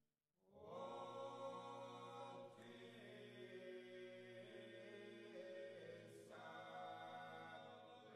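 Background music of slow choral chant: voices holding sustained chords that fade in about half a second in and change twice.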